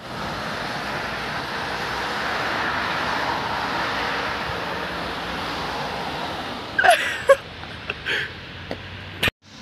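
Road traffic: cars driving past along a street. The noise swells to a peak about three seconds in and fades away by about six seconds. After it comes quieter street noise with a few brief chirps.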